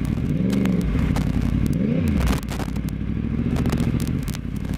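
Yamaha YZF-R1 inline-four engine at low road speed, blipped twice in the first couple of seconds, each rev rising and dropping back, then running steadily. Scattered sharp clicks come over it throughout.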